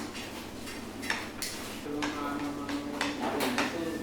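Dishes and cutlery clinking and knocking in a busy lunchtime rice eatery, several sharp clinks scattered through, with indistinct background voices.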